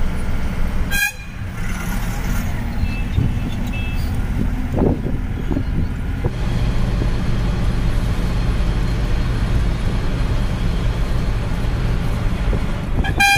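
Bus engine and road rumble heard from inside the moving bus, steady and low, with the horn tooting briefly a few seconds in.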